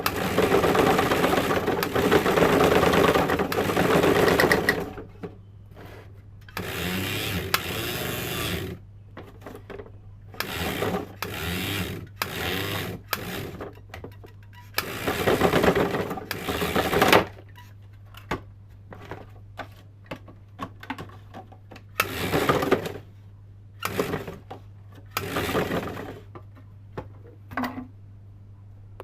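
Sewing-machine motor driving a homemade tin-can onion slicer, switched on and off in repeated bursts of one to four seconds. A steady low hum continues underneath between the bursts.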